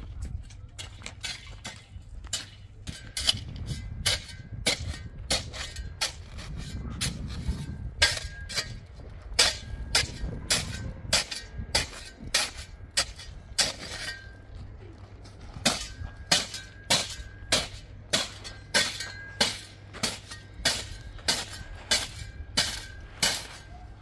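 A series of sharp, hard strikes, at first irregular over a low rumble, then settling from about eight seconds in into a steady beat of nearly two a second. Many strikes leave a brief ringing tone.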